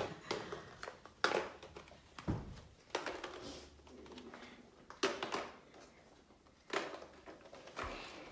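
Hollow plastic Easter eggs clacking as they are picked up off a wooden floor and dropped into a basket: about eight separate knocks, irregularly spaced.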